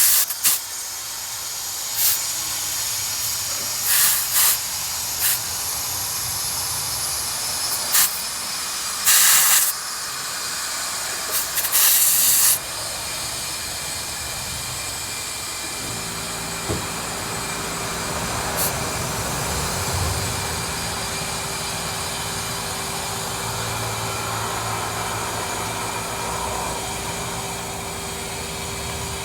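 Compressed air hissing steadily at a lawn mower tire, with several short, loud blasts of air in the first half. From about halfway a steady machine hum with a held tone joins the hiss.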